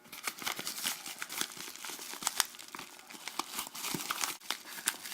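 Packaging being handled and opened by hand: irregular crinkling and crackling with a little tearing.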